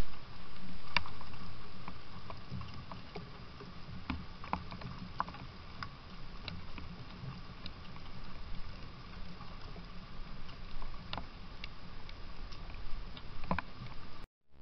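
Gray squirrel feeding at a wooden peanut feeder: scattered sharp clicks and taps over a steady outdoor hiss, with a louder rush in the first couple of seconds that fades.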